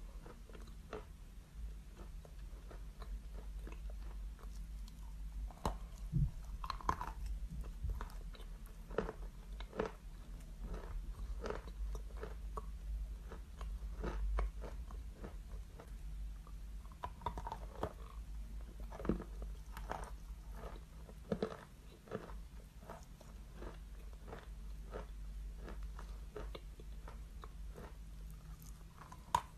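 A chunk of chalk being bitten and chewed close up: a dense, irregular run of small crisp crunches, with a louder bite now and then.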